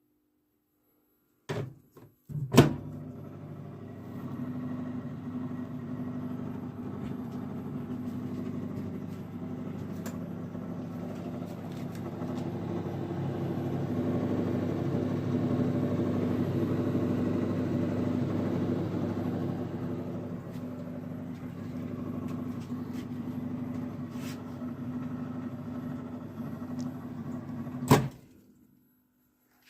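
Used Marshall microwave oven running: a couple of clicks as it starts, then a steady transformer hum with fan noise, swelling louder in the middle. A loud click near the end cuts it off.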